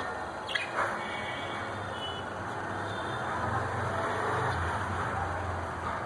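Budgerigars giving a few faint, short chirps over a steady background rumble, with two light clicks about half a second in.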